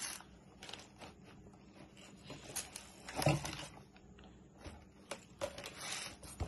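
Handling noise from a pair of running shoes in a cardboard shoebox: scattered rustling of tissue paper and light knocks of the shoes against the box, the loudest about three seconds in.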